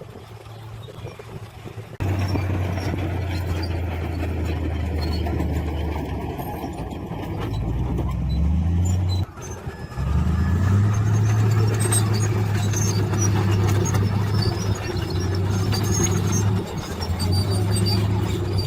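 Heavy diesel engine of earthmoving machinery running under load, rising in pitch as it revs up, then cutting off abruptly about halfway through and coming back a second later at a steady, slightly higher pitch.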